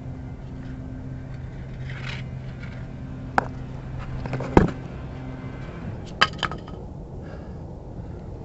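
An engine running steadily with a low hum that stops a little past halfway. A few sharp knocks and clicks come through, the loudest near the middle.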